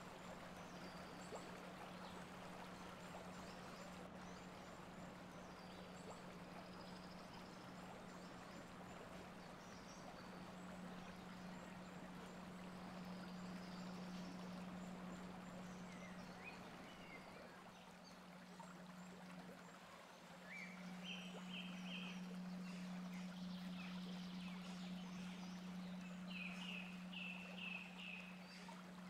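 Faint outdoor ambience: a steady low hum under a soft hiss like running water. Short high chirps from small birds come through, in quick runs about two thirds of the way in and again near the end.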